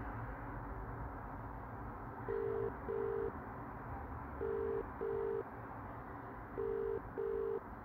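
British telephone ringback tone heard from a phone held to the ear: three double rings, each pair two short beeps, with a pause between pairs. The number being called is ringing and has not yet been answered.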